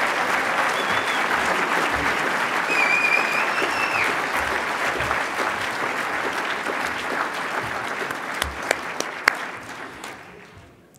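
Audience applauding, fading out over the last few seconds, with a short high whistle about three seconds in and a few sharp clicks as the applause dies down.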